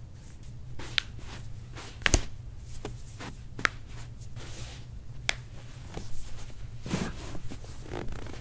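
Hands moving a patient's feet and ankles on a padded treatment table: soft handling and rubbing, with four sharp clicks spread over the first five seconds, above a low steady room hum.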